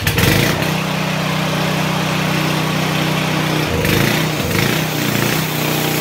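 Small engine of a homemade band sawmill running steadily, turning the band wheels. About four seconds in, its speed dips and wavers briefly before settling again.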